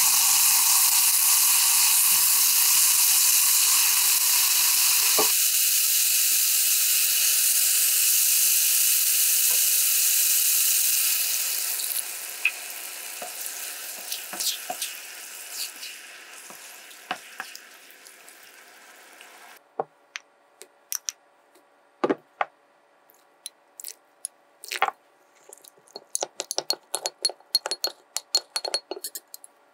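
Minced pork and vegetables sizzling hard in a frying pan as a spatula stirs them. About twelve seconds in, the sizzle dies down to a faint simmer with occasional spatula scrapes once the tofu and liquid are in. Later a metal spoon clinks quickly and repeatedly against a glass bowl, stirring potato starch into water.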